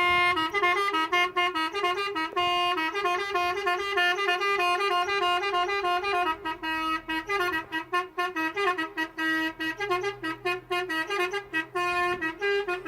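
A musical vehicle horn (bouri) playing a tune: a run of held, stepped notes over a steady lower tone, without pause.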